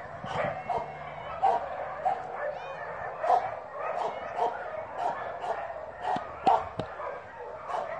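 Dogs barking and yipping over and over in short calls, about one every half second to a second.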